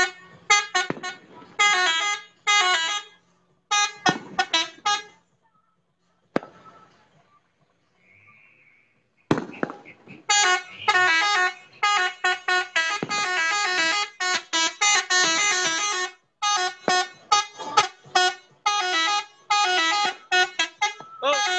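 Truck telolet horns, multi-tone musical air horns, sounded in quick repeated bursts of warbling tones. They stop for a few seconds about five seconds in, then play again in rapid bursts.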